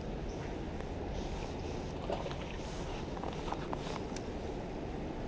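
Steady rushing outdoor noise of wind buffeting the microphone over flowing creek water, with a few faint short clicks in the middle.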